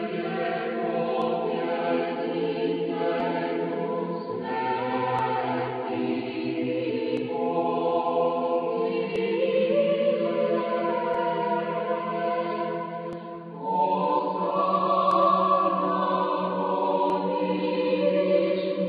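Choir singing a slow, unaccompanied Orthodox church hymn in harmony. About two-thirds of the way through, the voices step up to a higher, louder phrase.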